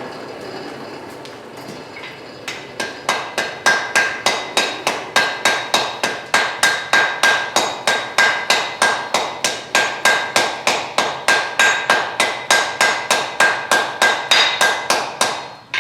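Hand hammer striking hot steel on an anvil in a fast, even rhythm of about three to four blows a second, each blow leaving a short ring, as the forge weld on an angle iron and bar stock twist is set at welding heat. A steady rushing noise comes before the hammering starts, a couple of seconds in.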